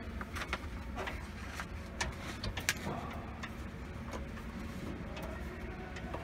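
Scattered sharp clicks and light ticks as a long butterfly pin, the transport lock of a vending machine's elevator lift, is turned out by hand, over a low steady rumble. The clicks come thickest in the first three seconds.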